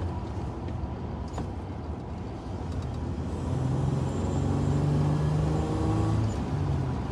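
Toyota 3.4-litre V6 (5VZ-FE) with an aftermarket Flowmaster muffler running at highway speed, heard from inside the pickup's cab together with road noise. It is a steady drone, not stock quiet, that gets a little louder and more tonal about halfway through.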